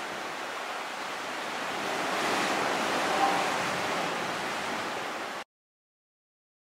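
Sea surf washing as a steady hiss, swelling slightly midway, then cutting off abruptly into silence a second or so before the end.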